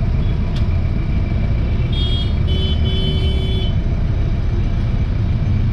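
Stopped traffic of idling motorbikes and scooters, a steady low rumble, with high-pitched vehicle horns beeping a few times about two to three and a half seconds in.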